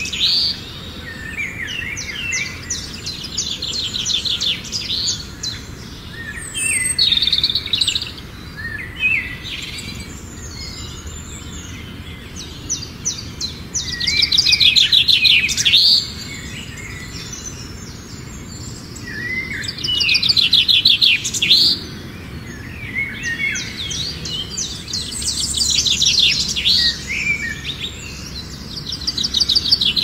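Songbirds singing: repeated rapid, high-pitched trills of about two seconds each, mixed with shorter chirps and whistled notes that overlap. The loudest trills come about halfway through and again about two-thirds of the way through.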